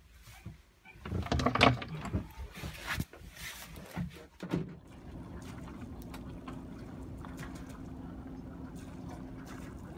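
Knocks and clatter of tools being worked in a sailboat's engine compartment while a leaking stern-gland packing nut is tightened. About halfway through, this gives way to the Alberg 30's inboard engine running steadily, a constant low hum, as the boat motors out of its slip.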